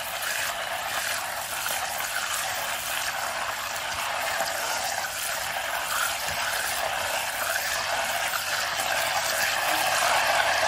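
Melted unsalted butter sizzling steadily in a stainless steel saucepan, getting slightly louder near the end. The sizzle is the butter's water boiling off as it heats toward browning.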